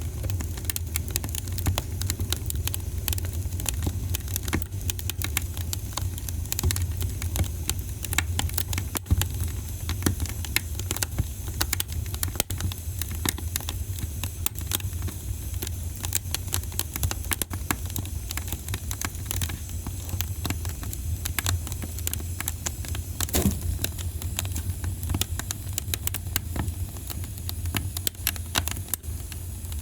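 Wood fire crackling in a fireplace: irregular sharp pops and snaps over a steady low rumble of the flames, with one louder pop at about two-thirds of the way through.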